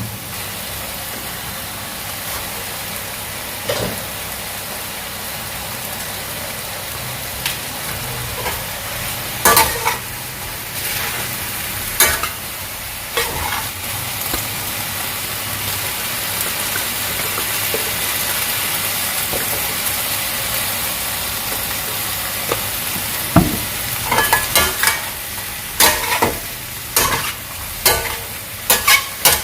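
Food stir-frying in a pan: steady sizzling, with a utensil knocking and scraping against the pan now and then and more often in the last few seconds.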